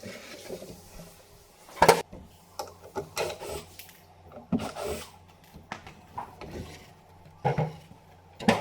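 Wooden knocks and rubbing from handling the drawers of a wooden cabinet, with one sharp knock about two seconds in, another near the end, and softer scraping between.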